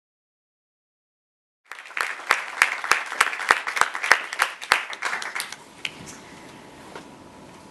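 Dead silence, then an audience applauding from about two seconds in; the clapping dies away after about four seconds.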